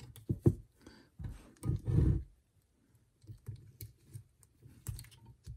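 Handling noise from a tuned port injection fuel rail assembly being worked by hand on a bench: a few dull knocks and thuds in the first two seconds, then scattered light clicks as a retainer is fitted.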